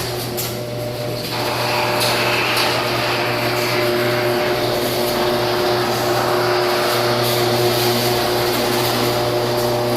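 Garage door opener motor running steadily with a constant hum as it drives the door.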